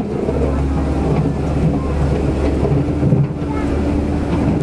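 Komatsu PC130F-7 excavator's diesel engine running steadily as the boom and bucket work, with water rushing over a weir behind it.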